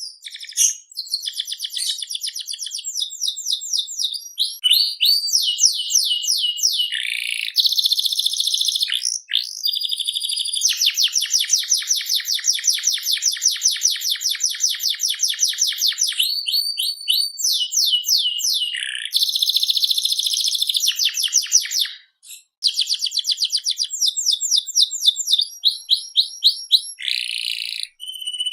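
Domestic canary singing a long, high-pitched song of fast trills and rapidly repeated chirps, nearly without pause, breaking off briefly about 22 seconds in.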